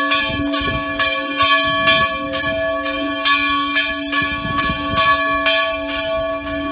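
Church bells ringing, struck about twice a second, with the tones of earlier strikes ringing on beneath each new one.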